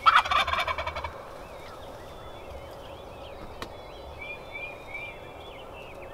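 A tom turkey gobbles once, loud, in a fast rattling run about a second long. Small songbirds chirp and trill softly afterwards.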